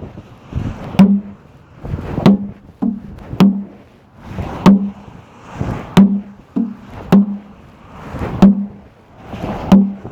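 Regular low thuds about every half second or so, every second one with a sharp click.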